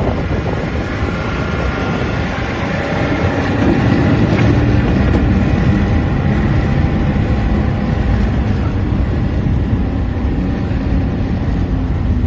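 Strong gusting wind buffeting the microphone on open lake ice, a steady heavy rumble.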